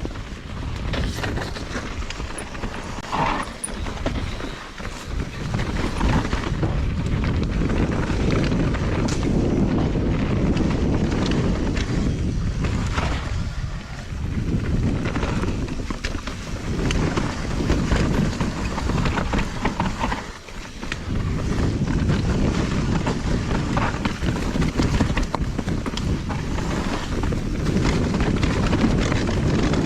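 Mountain bike ridden fast down a dirt jump trail: wind rushing over the microphone and tyres rumbling on dirt, broken by frequent knocks and rattles from the bike. The noise eases briefly twice, about fourteen and twenty seconds in.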